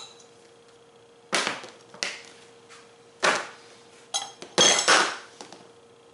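A hard mold tray knocking on a kitchen counter, about five sharp knocks with a brief metallic clatter in the middle; the loudest knocks come close together a little under five seconds in.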